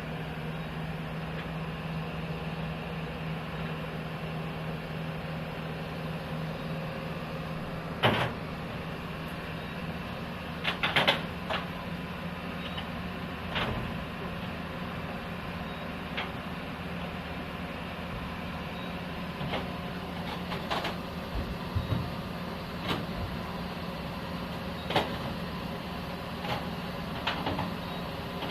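Heavy diesel engine idling steadily at an even pitch, with occasional sharp metallic clanks and knocks, a loud one about a third of the way in and a quick cluster shortly after.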